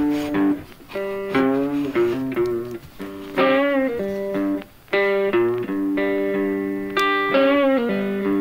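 Background music: a guitar playing a slow melody of plucked notes, many of them bent or wavering in pitch.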